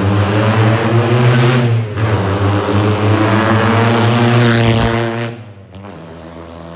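Pre-war Bugatti racing car engine on open straight pipes, running loud and steady with a brief dip near two seconds. About five seconds in it drops suddenly to a much quieter, steady, lower-level running note.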